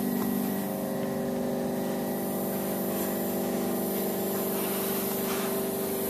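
A steady machine hum with several held tones and a hiss over it, unchanging throughout.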